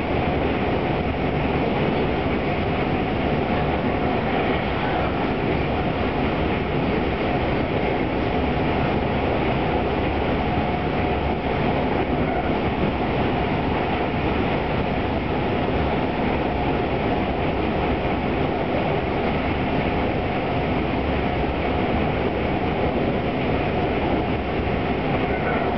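Running noise of a Tobu 200 series limited-express electric train, heard from the vestibule: steady traction-motor hum and wheel and rail noise at speed. The motors are the 1720 series 'DRC' units reused, geared for high speed, which gives a low-pitched motor sound.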